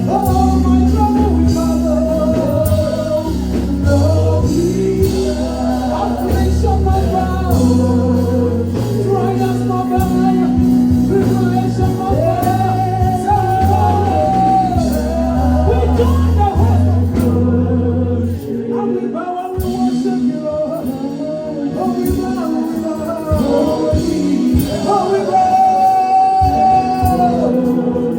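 Gospel worship music: singing voices over a band with a heavy bass line. The bass drops out about two-thirds of the way through while the singing carries on.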